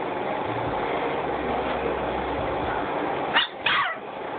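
Puppies yipping: two short high yips in quick succession about three and a half seconds in, over a steady hiss.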